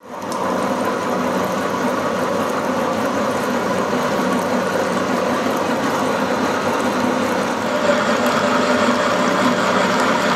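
Milling machine cutting a slot in a steel-bar block with a helical end mill under flood coolant: a steady machining noise with a constant hum, unchanging throughout.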